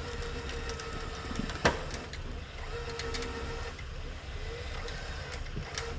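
Off-road vehicle engines running steadily with a low rumble, a whine that comes and goes, and a single sharp knock or clank a little under two seconds in.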